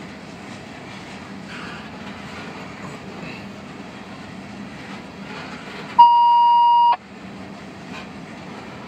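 Tank cars of a freight oil train rolling past: a steady rumble of wheels on rail with light clicks. About six seconds in, a loud electronic beep at one steady pitch sounds for about a second and cuts off abruptly, the train noise blanked while it lasts.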